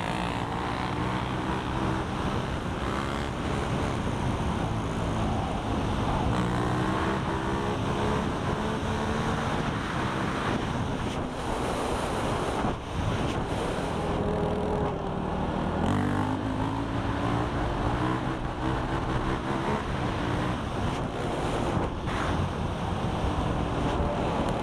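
Quad (ATV) engine accelerating through the gears, its pitch climbing and dropping back at each shift several times, under heavy wind noise on the helmet-mounted microphone.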